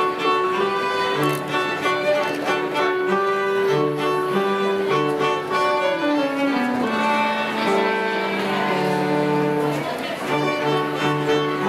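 Cello and violin playing together live, a slow piece of long bowed notes; about six seconds in the lower line falls in pitch before settling.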